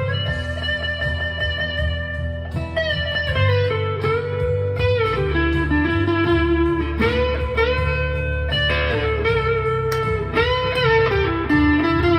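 Chapman ML1 Modern Standard electric guitar on its neck pickup split to single coil, played through an overdrive pedal. It plays a single-note lead line of held notes with pitch bends.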